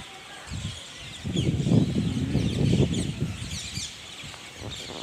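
A large flock of parrots calling, many short high chirps and squawks overlapping throughout. A louder low rumble runs from about a second in to about three seconds in.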